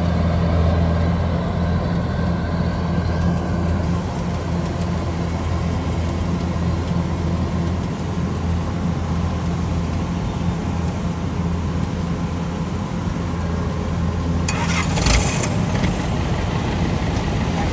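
Kubota DC-105X rice combine harvester's diesel engine running steadily under load as it works, with a short burst of noise about fifteen seconds in.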